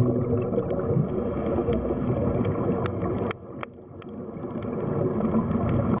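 Underwater ambience: a low, churning rumble of water with scattered sharp clicks. It drops away suddenly a little past halfway, then builds back up.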